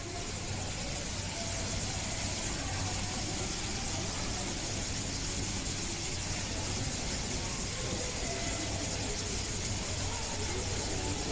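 Steady background noise: an even hiss with a low, constant hum underneath, and a faint murmur of distant voices.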